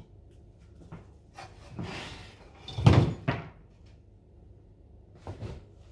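Wooden crate being tipped up and shifted on a wooden floor: a few knocks and scrapes of wood, with the loudest thump about three seconds in.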